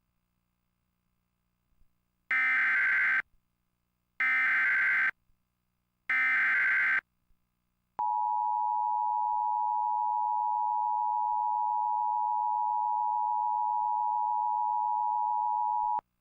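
Emergency Alert System broadcast tones: three short, identical, buzzy SAME header data bursts, then the steady two-tone attention signal (853 and 960 Hz) held for about eight seconds before cutting off. Together they announce an incoming emergency warning, here a severe thunderstorm warning.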